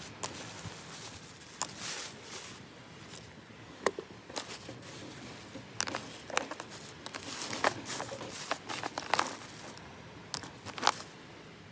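Thin plastic bag crinkling and rustling as it is handled and pulled open, with irregular sharp crackles.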